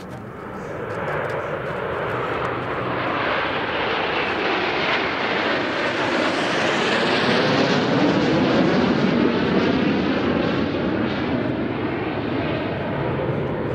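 A formation of Snowbirds CT-114 Tutor jets flying overhead. The jet engine noise swells to its loudest about two-thirds through, then eases off a little as the formation moves away.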